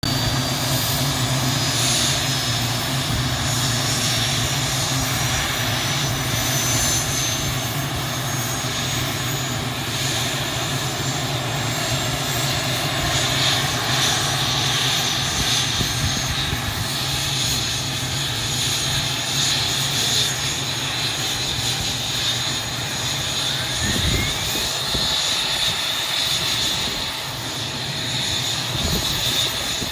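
A Kamov Ka-32A helicopter's twin turboshaft engines running on the ground during start-up. A high turbine whine climbs in pitch over the first several seconds, then the engines settle into a steady run.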